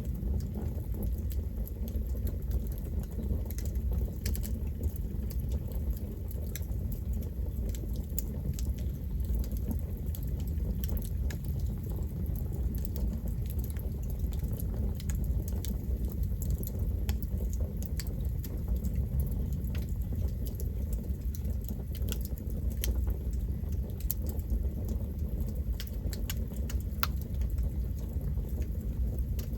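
Campfire burning: a steady low rumble of flames with frequent small crackles and pops of burning wood scattered throughout.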